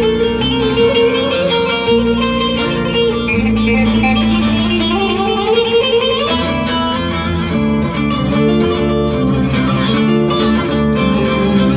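Instrumental music played on plucked string instruments: quick plucked notes over held low notes, with a rising sliding note about halfway through.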